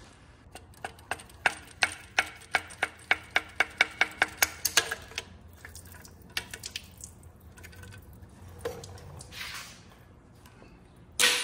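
Hand work on a BMW S54 engine's cooling system as the coolant hard pipe under the water neck is removed: a run of evenly spaced sharp clicks, about four a second for some four seconds, then scattered knocks and short rustles as the pipe is worked free.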